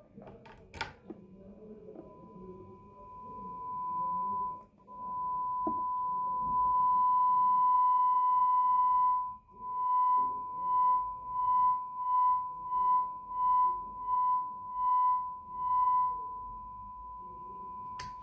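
A steady single-pitch test tone played through a Markbass Little Mark Tube 800 bass amplifier into a speaker cabinet, with a click as it starts. It cuts out briefly twice, then swells and fades about ten times as the freshly cleaned potentiometer is turned back and forth, and the tone comes through clear with no crackling: the pot is clean.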